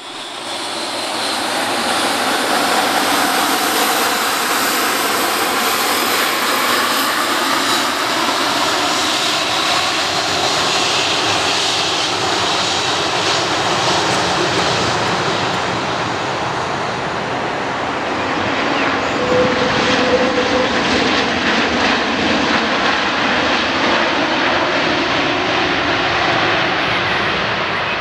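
Airbus A330-300 with Rolls-Royce Trent 700 jet engines landing: a loud, steady jet rumble and whine, with faint tones slowly shifting in pitch as the airliner flares, touches down and rolls out on the runway.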